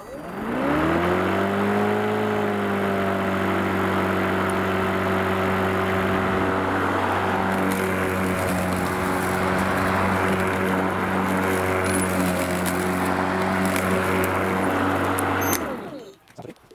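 Black & Decker 36V cordless lawn mower's electric motor and blade spinning up with a rising whine about half a second in, running steadily for about fifteen seconds, then switched off and winding down near the end. It runs normally on a charged battery being tested.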